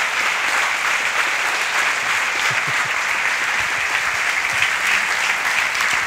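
Audience applauding: many hands clapping in a steady, even clatter.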